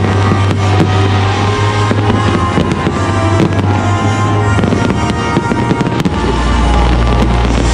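Fireworks going off in quick succession, sharp bangs and crackles, over loud music with a steady bass line that drops to a lower note about six seconds in.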